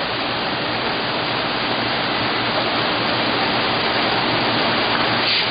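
Steady rushing of water spraying inside a 5-gallon bottle washing machine, its wash and rinse pumps running, with a faint low hum underneath. A short, louder rush comes near the end.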